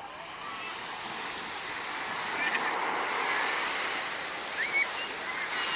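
Surf on a beach: a wave breaks and washes in, swelling to its loudest about midway and then easing off, with a few short high chirps over it.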